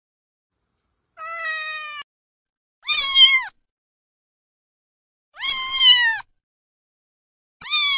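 A cat meowing four times, in high calls each under a second long, with silence between them. The first call is quieter and level; the later ones are louder and drop in pitch at the end.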